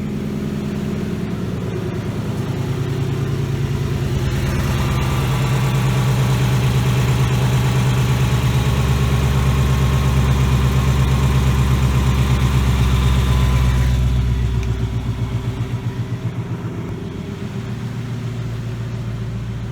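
A 2018 Ford Mustang GT's 5.0 L Coyote V8 idling steadily after a cold start, heard close up while being checked for the typewriter tick that is linked to cylinder wear in these engines. It is louder and brighter from about four seconds in until about fourteen seconds, then falls back.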